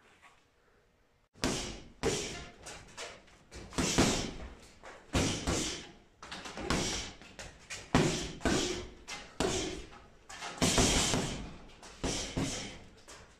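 Gloved punches landing on a 100-lb Everlast heavy bag: a quick, irregular series of thuds in short combinations, starting about a second and a half in.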